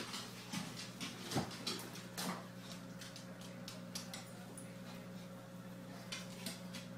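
A dog's claws clicking on a hardwood floor and knocking against a wooden cabinet door as it paws at it, with a brief whimper about a second and a half in. A steady low electrical hum runs underneath.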